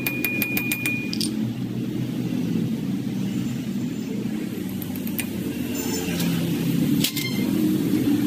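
Quick light metal-on-metal taps, about five a second with a ringing note, as a ball bearing is driven onto a motor armature shaft; they stop about a second in. A steady low rumble runs underneath, with a couple of sharp metal clicks later.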